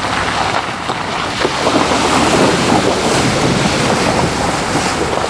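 Floodwater rushing and splashing against a pickup truck as it drives through a flooded creek crossing: a loud, steady wash of water that swells from about a second and a half in.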